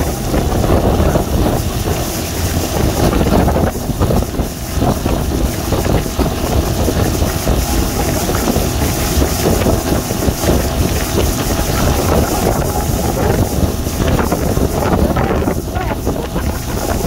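Motorboat under way at speed: steady wind buffeting the microphone over the rush of the churning wake and the engine running.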